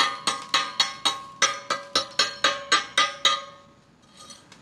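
Slag hammer chipping slag off a fresh stick-weld bead on a steel plate: quick ringing metal taps, about four a second, with the plate ringing after each strike. The taps stop about three and a half seconds in.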